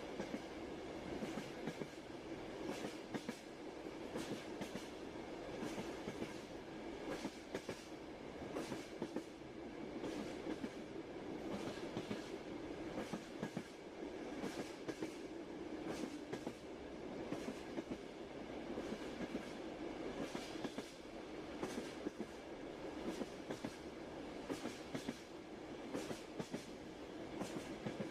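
Train wheels clacking over rail joints against a steady running rumble of a railway carriage. The sharp clacks come in small clusters every second or two.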